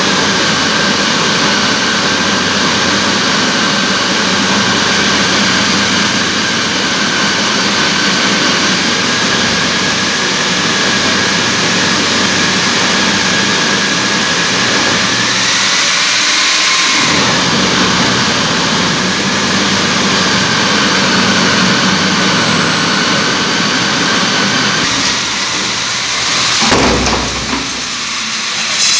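Electric diamond core drill running under load, cutting through a concrete slab with water cooling: a loud, steady motor noise with a high whine that rises briefly about halfway. Near the end a sharp knock and low thump as the bit breaks through the slab.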